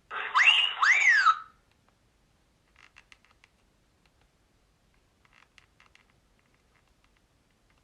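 A Nokia 3200 mobile phone plays a short tone through its speaker, about a second and a half long: two quick upward-sweeping whoops, the second falling away again. Faint clicks follow twice a few seconds later.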